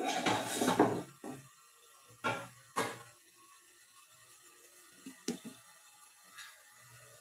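Kitchen handling sounds: about a second of clattering and rustling at the start, then a few short separate knocks and clinks spread over the next several seconds.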